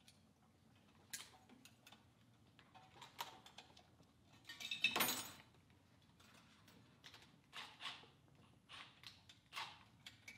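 Metal hand tools and small parts clinking and rattling on a workbench in scattered light clicks, with one louder, ringing metal clatter about five seconds in.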